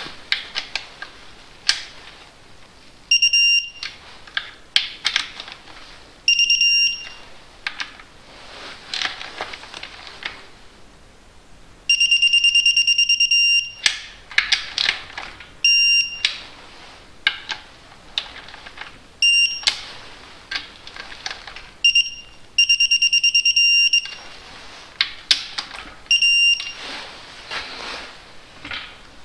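Electronic torque wrench beeping as each timing-case bolt reaches its set torque, with the ratchet clicking as the bolts are run down between beeps. About eight high beeps, most under a second, two held for about two seconds.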